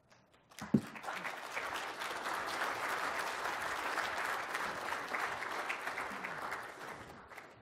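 Audience applauding: many hands clapping, starting about half a second in and fading out near the end. A single thump comes just under a second in.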